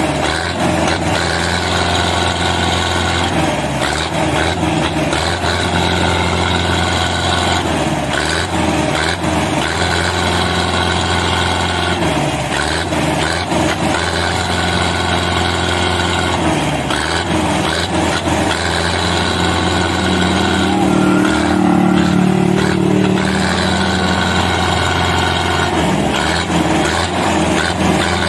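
Belarus tractor's diesel engine running steadily, growing louder for a couple of seconds about three-quarters through.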